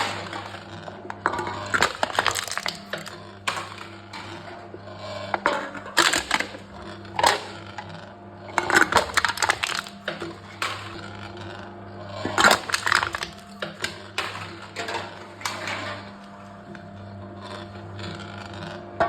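Aluminium drink cans being crushed by a machine: repeated bursts of crumpling, crackling metal a few seconds apart, over a steady low hum.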